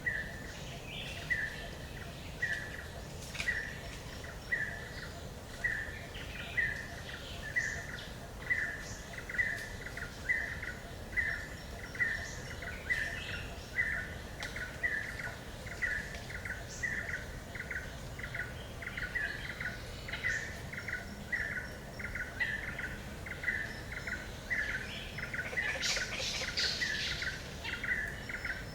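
Forest ambience with a bird repeating one short call note, about once a second at first and quickening to about two a second later. Other higher bird chirps come and go, with a brief burst of them about 26 seconds in, over a steady low background hum.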